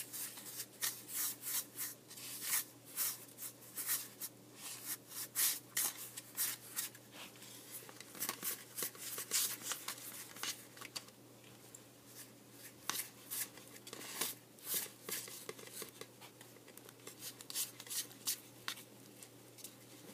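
Small plastic spoon stirring thick candy paste, powder just mixed with water, in a plastic tray: quick irregular scrapes and clicks of spoon on tray, thinning out for a few seconds past the middle.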